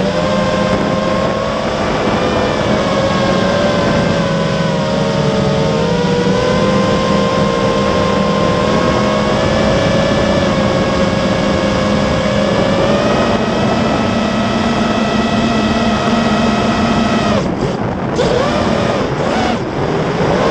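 A racing quadcopter's four brushless motors and propellers whining, heard through the onboard camera with wind rush on its microphone; the pitch drifts up and down with throttle. Twice near the end the sound dips briefly and swoops in pitch.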